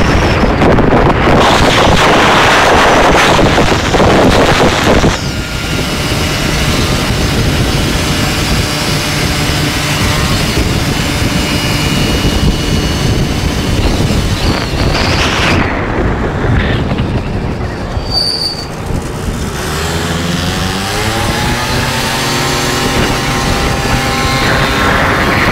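Wind blasting over the microphone of a moving vehicle, loudest in the first five seconds, over a small two-stroke scooter engine running under load. About twenty seconds in, the engine note rises as it revs up.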